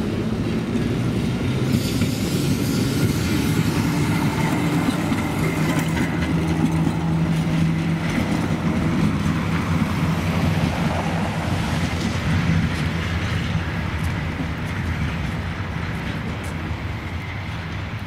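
An LVS-86K (71-86K) articulated tram running along snowy track and moving away, with a steady low hum, growing fainter in the last few seconds.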